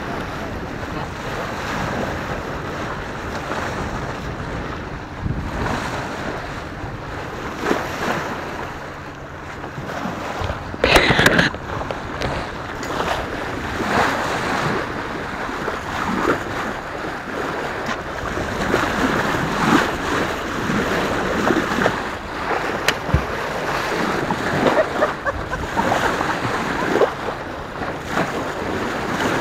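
Sailboat's bow wave rushing and splashing along the hull, with wind buffeting the microphone. A louder, sharper splash comes about eleven seconds in.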